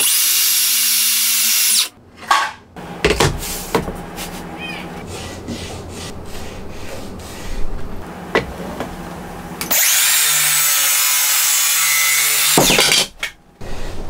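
Makita HS631DZSB cordless circular saw cutting plywood in two runs of about two and three seconds, with a steady high whine. Between and after the cuts come wooden knocks and clatter as the boards are handled.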